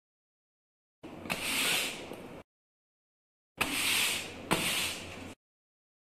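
Long-bristled grass broom swishing across a rug in two bursts of sweeping strokes, each about a second and a half long.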